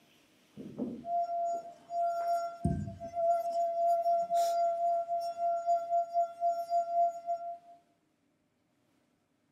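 Wine glass rim rubbed with a wet finger, ringing one steady high tone that wavers in loudness and stops about a second and a half before the end. Two short low sounds come near the start.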